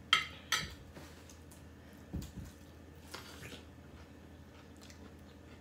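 Eating sounds: two sharp clicks just after the start, a soft thump about two seconds in, then a short crunchy bite into a piece of boiled sweet corn on the cob about three seconds in.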